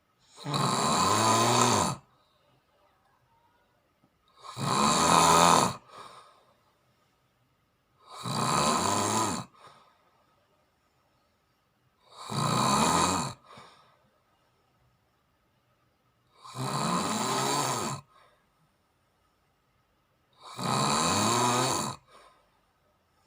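A person snoring in slow, regular breaths: six loud snores, about one every four seconds, each lasting a second and a half or so. A short, quieter puff follows most of them.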